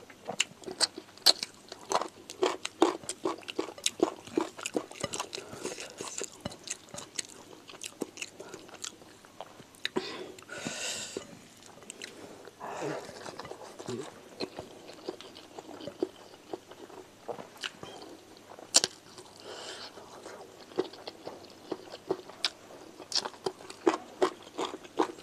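Close-miked chewing of rice eaten by hand, with wet mouth clicks and lip smacks. About ten and about thirteen seconds in there are a couple of longer hisses.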